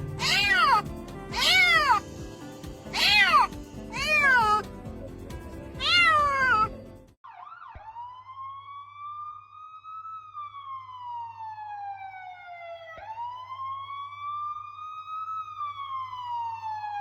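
A cat meowing five times, about one call every second and a half, over background music. After a sudden break, a police siren wails, slowly rising and falling twice.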